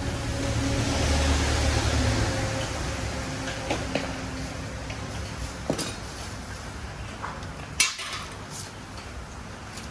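Small metal parts and hand tools clinking against each other while a stripped-down motorbike engine is worked on. The clinks come one at a time, a few in all, the sharpest about eight seconds in. Underneath is a steady hiss with a low hum that swells over the first couple of seconds and then fades.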